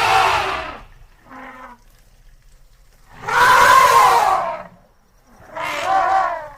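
Elephant calling: three loud calls, each about a second long, with a short, fainter call after the first.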